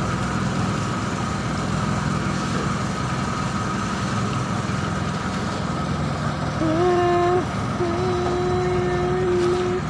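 Outrigger boat's engine running steadily underway, a continuous low rumble. About two-thirds of the way in, a held higher tone joins it, stepping between a few steady notes.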